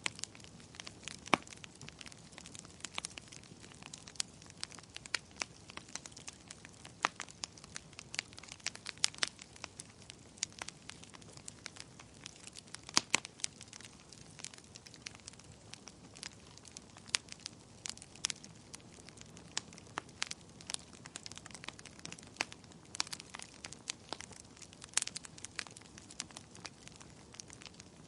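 Wood fire crackling in a fireplace: irregular snaps and pops of burning logs, some sharper and louder than others, over a soft steady hiss.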